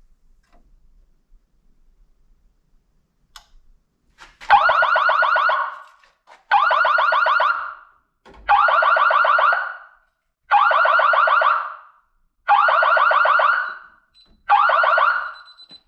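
Fire alarm horn sounding a buzzing tone in six blasts, each about a second and a half long and one every two seconds, starting about four and a half seconds in. It has been set off by the system's heat-detector thermostat with its setting turned all the way down.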